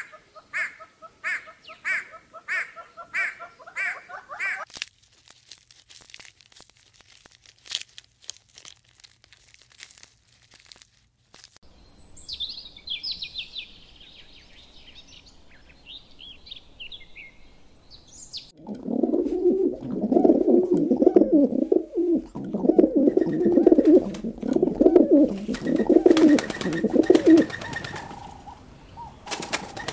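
Birds calling in several short takes. First comes a call repeated about twice a second, then thin high chirping, then a long stretch of low, pulsing cooing that is the loudest part.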